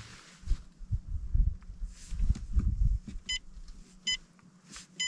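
Humminbird fish finder beeping three times, short electronic key-press beeps about a second apart in the second half, as its buttons are pressed. Irregular low rumbling runs underneath through the first few seconds.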